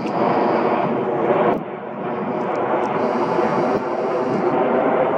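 Cargolux Boeing 747-8F freighter passing overhead, its four turbofan engines making a steady, rushing jet rumble. The level dips briefly about a second and a half in.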